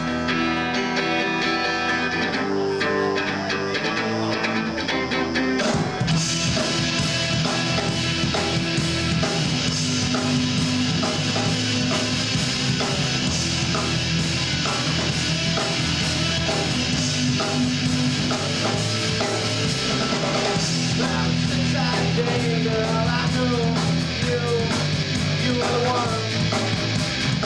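Live rock band with electric guitars, bass and drum kit starting a song: a sparser intro for about six seconds, then the full band comes in at once with drums and cymbals.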